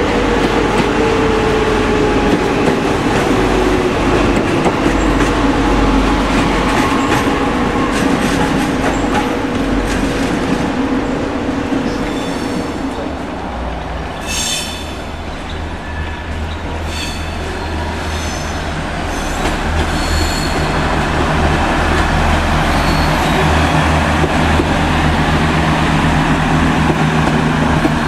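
Trains passing through a station. A regional multiple unit's motor whine falls in pitch over the first few seconds as it rolls past, with steady wheel-on-rail noise. Short high wheel squeals come around the middle, then a low steady hum and rolling noise build as a TGV trainset runs past close by.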